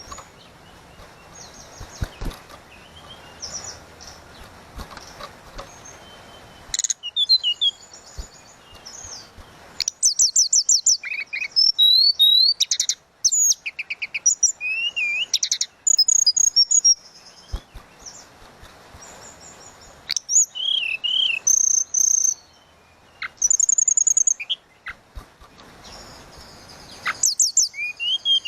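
Tledekan laut songbird singing in flute-like whistled phrases and quick trills, in repeated loud bursts with short pauses; the song is sparse and quiet for the first several seconds, then turns vigorous about seven seconds in.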